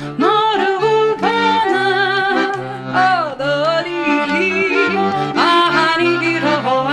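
A woman singing a gliding, ornamented melody over her own accordion, which plays bass and chord notes in a steady rhythm underneath.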